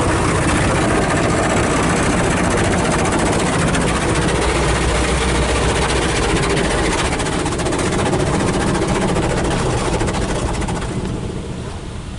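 Belanger Kondor KL2 in-bay car wash spraying water over the car, heard from inside the cabin as a steady loud hiss with a low rumble beneath. It eases off near the end.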